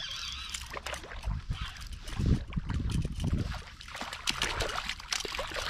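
Hooked speckled trout thrashing and splashing at the surface beside a kayak as it is brought to the net: a run of irregular splashes with a few dull knocks about two to three seconds in.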